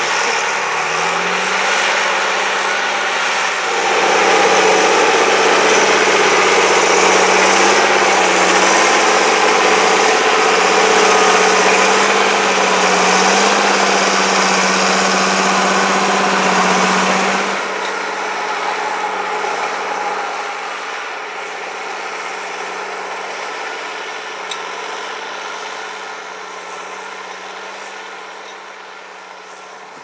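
John Deere 8410 tractor's six-cylinder diesel engine working under heavy load, pulling a three-bottom plough through heavy, wet soil: a steady, deep, even-pitched drone. It is loudest through the middle stretch, drops back a little past halfway, and fades out at the end.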